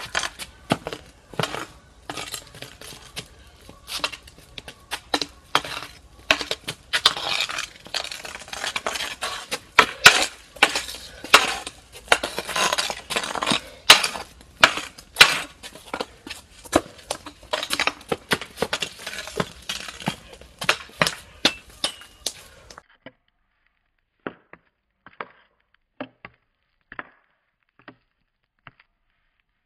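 Hockey stick blade tapping and scraping a street hockey ball on concrete during fast stickhandling: a quick, dense clatter of taps. About three-quarters of the way through it changes to single taps spaced well apart.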